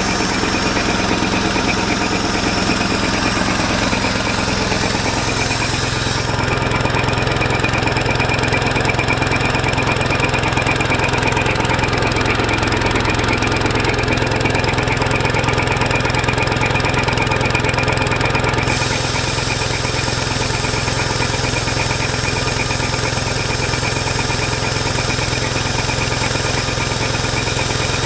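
A 7.5 hp petrol walk-behind-tractor engine running steadily while it drives a piston air-compressor head. A high hiss over the engine drops out about six seconds in and comes back after about nineteen seconds.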